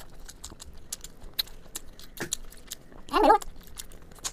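Close-miked wet eating sounds: sucking, lip-smacking and small clicks from chewing spicy braised sheep head meat off the bone. A brief vocal sound comes about three seconds in.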